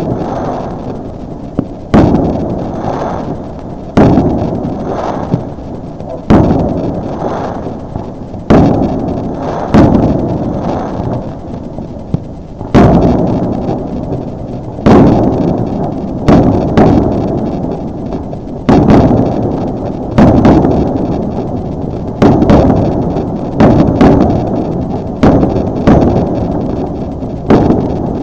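Fireworks bursting one after another: a sharp bang every one to two seconds, each trailing off in a long rumbling echo.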